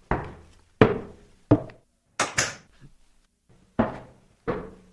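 Footsteps on a hard wooden floor in a small room: slow, evenly spaced thuds about two thirds of a second apart, pausing briefly in the middle, over a faint low hum.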